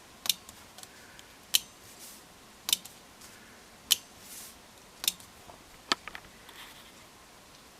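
A 12-volt relay clicking as its transistor flip-flop is switched back and forth with two push buttons: six sharp clicks about a second apart, with a few fainter ticks in between.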